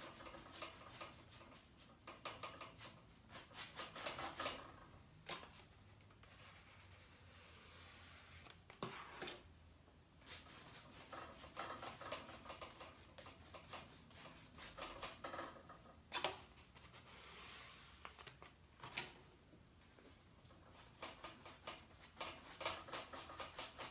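Faint rubbing and scratching of a wide flat paintbrush as acrylic paint is mixed on a plate palette and stroked onto a canvas, in runs of quick strokes, with a few sharper clicks.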